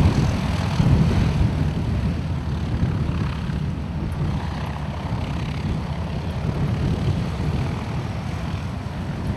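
Cessna A-37 Dragonfly's twin turbojets heard in flight overhead: a steady rumble that slowly fades.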